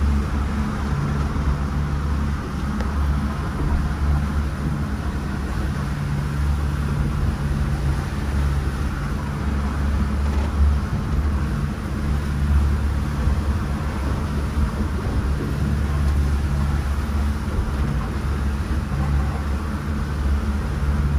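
Boat engine running steadily underway: a low drone that swells and eases, with a steady rushing hiss of water and wind over it.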